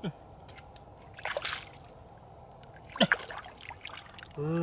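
Splashing in shallow muddy water as a large snakehead fish is grabbed and lifted out, with a sharp splash about three seconds in and water running off the fish. A man's voice gives a short drawn-out hum near the end.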